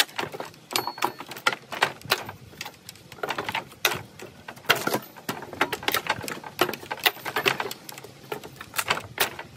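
Loose wooden pallet slats knocking and clattering irregularly under the boots of a person stepping across a stack of pallets, a quick run of sharp wooden knocks.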